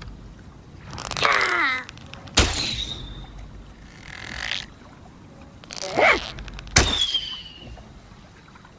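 A bow is drawn with a creaking swell and loosed with a sharp snap of the string and a short falling ring. This happens twice, the shots about four and a half seconds apart.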